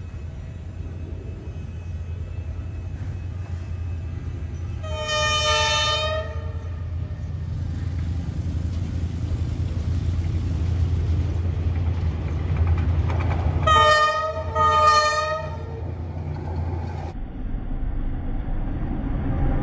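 Diesel locomotive approaching, its engine rumble growing louder as it nears. It sounds its horn in one long blast about five seconds in, then two shorter blasts close together around fourteen seconds.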